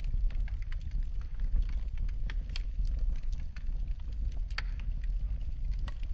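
Wood fire burning in a fireplace, with a steady low rumble and irregular sharp crackles and pops, the loudest pop about four and a half seconds in.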